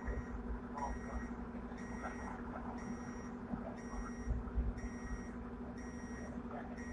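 An electronic warning beeper sounding about once a second, each beep lasting just over half a second, over the tram's steady hum and low rumble.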